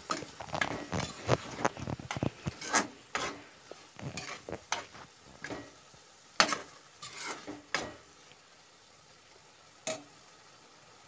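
Metal spatula scraping and clinking against a metal pan as it stirs thick grated-carrot halwa and milk, in irregular strokes. The strokes stop about eight seconds in, with one more knock near the end.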